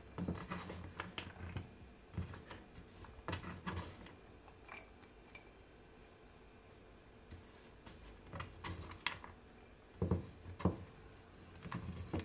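Cut carrot sticks being scooped off a wooden cutting board and dropped into a plate: light knocks and clatters of carrot pieces and fingers on board and plate, coming in short bunches with a quieter spell in the middle.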